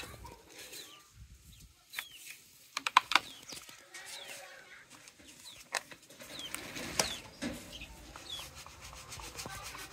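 Chickens clucking, with short high falling peeps scattered through, and a few sharp knocks among them; the loudest knock comes about three seconds in.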